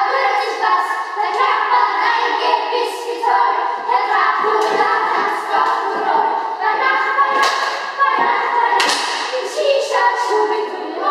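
A group of children singing a song together, with a couple of sharp slaps or thumps about seven and a half and nine seconds in.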